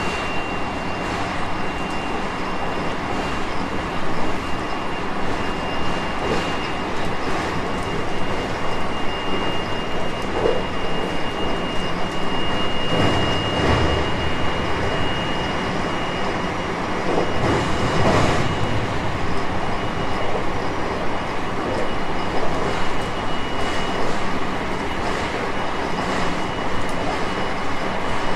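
Running sound inside a JR West 223 series 5000 electric train with Mitsubishi IGBT inverters, moving at speed: steady rolling and wheel-on-rail noise with a steady high tone. Two heavier, deeper rumbles come about halfway through.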